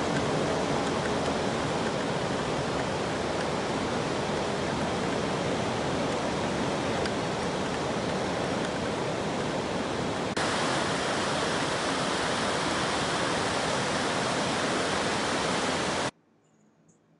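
Floodwater rushing across a road, a steady even rush of noise; the tone shifts slightly about ten seconds in, and the sound cuts off abruptly near the end.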